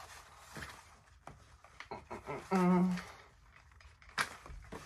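A kayak seat frame with white PVC pipe risers being handled and turned over: scattered light plastic clicks and soft rustling, with a sharper click near the end. A brief voiced sound is heard about two and a half seconds in.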